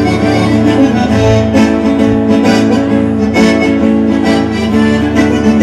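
A live acoustic band playing an instrumental interlude of regional gaúcho (Rio Grande do Sul) music between sung verses. Plucked acoustic guitar runs under a steady held melody line.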